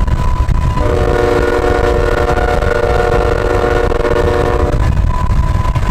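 Canadian Pacific GE ES44AC diesel locomotive's air horn sounding one long chorded blast that starts about a second in and stops about four seconds later, over a steady low rumble.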